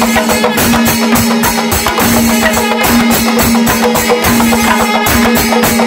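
Kerala temple percussion ensemble playing a fast, dense rhythm, with hand cymbals (ilathalam) clashing and a double-headed barrel drum beating. Under the strokes runs a steady held note that breaks off briefly about once a second.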